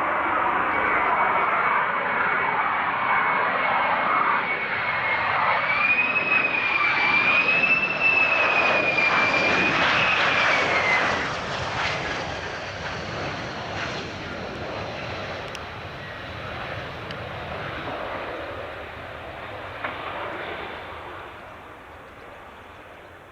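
Jet aircraft engines passing: a loud rush with a high whine that wavers up and down in pitch, strongest in the first half, then fading steadily away over the last ten seconds.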